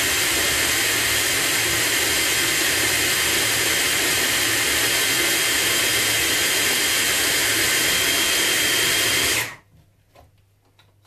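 Food processor motor running steadily, grinding sun-dried tomato pesto into a coarse paste, then stopping suddenly about nine and a half seconds in. A few faint clicks follow.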